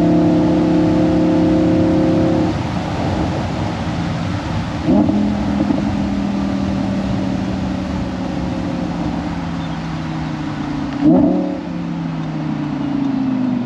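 Audi R8 V10 Spyder's V10 engine with an ASG valved exhaust, running steadily under light throttle, then lifting off after about two seconds and slowly dropping in revs. Two short rev blips, downshifts, come about five seconds in and again near eleven seconds.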